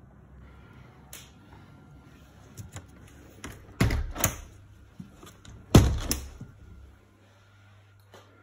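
A uPVC window being handled and shut: a few light clicks, then two heavy thuds about two seconds apart, each with a quick second knock.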